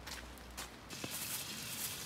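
A few faint taps, then about a second in a steady sizzle of food frying starts suddenly.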